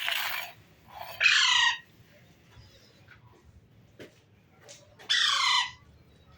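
Pet parrot squawking: a short harsh burst at the start, then two loud calls that fall in pitch, about a second in and again about five seconds in.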